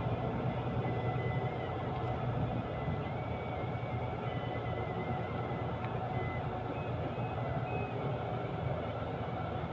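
Steady engine and road rumble heard from inside a moving road vehicle.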